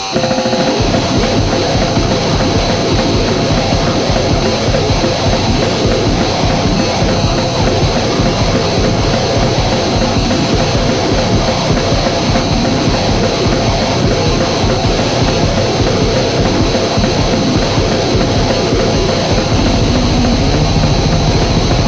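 Harsh, heavily distorted noise music: a loud, unbroken wall of distortion with a fast flutter in the bass. Near the end the bass settles into a steadier hum.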